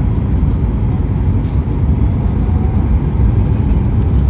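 Cabin noise of a Boeing 737 MAX 8-200 landing, heard from a window seat over the wing: a steady, loud low rumble of its CFM LEAP-1B engines and of air and wheels on the airframe.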